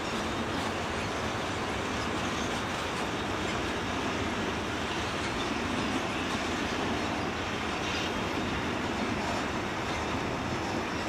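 Long freight train of covered goods wagons rolling slowly past: a steady rumble and clatter of wagon wheels on the rails.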